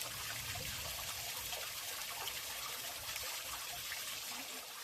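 Thin trickle of water running down the rocks of a nearly dry waterfall, a steady, even sound of running water.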